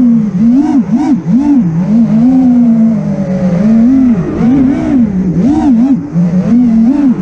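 FPV racing quad's four brushless motors (Brother Hobby Returner R6 2306 2450kv) and props whining, the pitch swooping up and down again and again as the throttle is punched and chopped through the turns.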